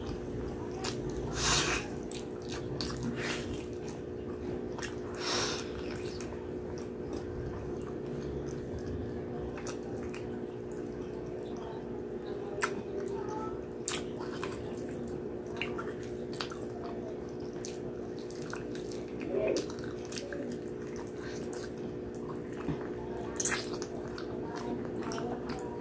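Close-up wet chewing and lip-smacking as soft, sticky braised pork hock is eaten by hand, with scattered sharp mouth clicks and a few louder smacks. A steady low hum runs underneath.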